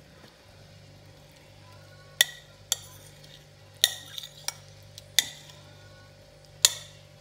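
Metal spoon scraping and clinking against a pan while scooping out slices of rolled egg, about seven sharp irregular clinks.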